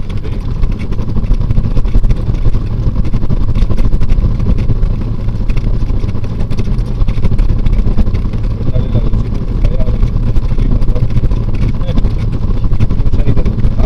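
Light single-engine propeller aircraft's engine and propeller running steadily at low power during the roll along the runway after landing. It is heard from right behind the propeller on top of the cowling, so it comes through as a loud, steady low rumble with wind on the microphone.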